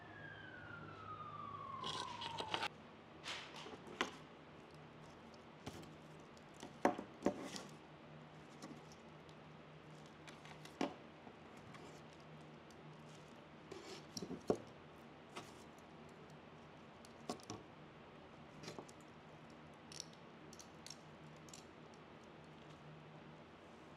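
Hands working loose moss onto a wire wreath frame on kraft paper: sparse soft rustles, paper crinkles and small clicks. Over the first two and a half seconds a long falling tone sounds, then cuts off abruptly.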